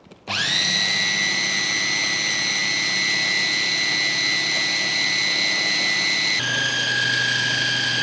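Electric food processor motor running, puréeing a mixture of mashed tofu, raw egg, carrot and spring onion. It spins up with a rising whine just after the start, holds a steady high whine, and drops to a lower pitch about six seconds in.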